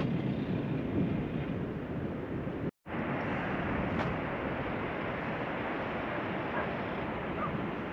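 Wind buffeting the microphone on an exposed hilltop: a steady low rushing noise that drops out for a moment about three seconds in.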